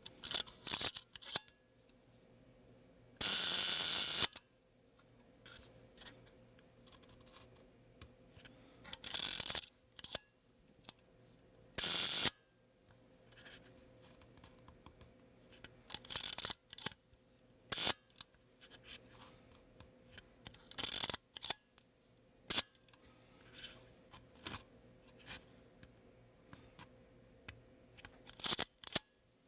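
The shutter of a 1950s David White Stereo Realist stereo camera is cocked and fired again and again at different speeds while it is tested, along with small clicks of the controls. The slowest release runs about a second, a few run about half a second, and the rest are short clicks.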